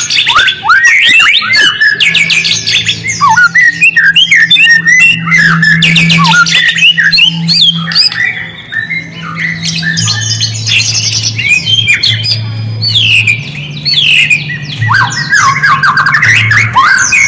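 White-rumped shama (murai batu) singing loudly: a fast, dense run of harsh chattering and quick downward-sweeping whistled notes, with barely a break.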